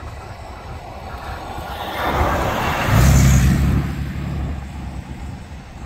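Road and wind noise from a moving car, swelling about two seconds in into a loud low rumble that peaks over the next two seconds as an oncoming pickup truck passes close by, then easing back.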